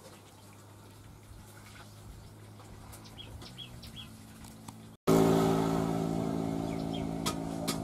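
Quiet outdoor background with short bird chirps for about five seconds. Then an abrupt cut to a loud, steady motor engine drone of several low tones that slowly grows quieter, with a couple of sharp clicks near the end.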